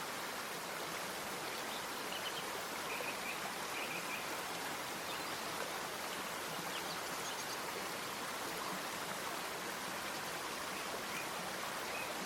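Steady rush of running water, like a stream, with a few faint high chirps now and then.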